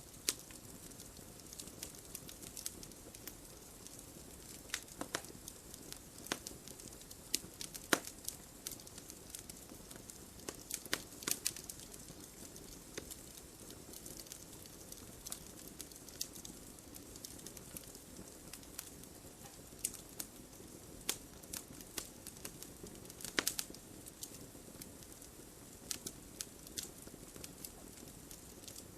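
Wood logs burning in a fireplace: a steady low hiss of flames with irregular sharp crackles and pops, a few louder snaps scattered through.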